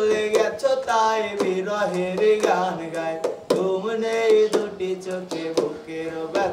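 A man singing a held, wavering melody, with sharp percussive hits falling through it a couple of times a second.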